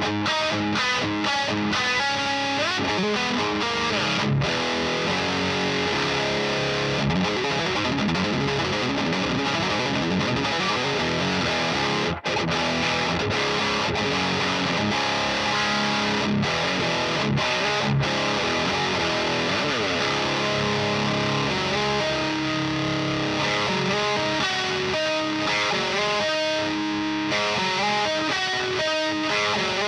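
High-gain distorted electric guitar playing riffs through a Diezel VH4 preamp pedal, boosted by an Abominable Electronics Hellmouth, into the EL34 power section of a Rivera Knucklehead Reverb. The playing is continuous, with notes sliding in pitch in places and a momentary stop about twelve seconds in.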